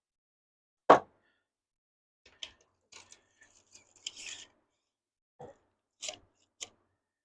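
Wooden boards and tools being handled: one loud knock about a second in, then scattered light taps, clicks and a brief rustle, and three sharper clicks near the end.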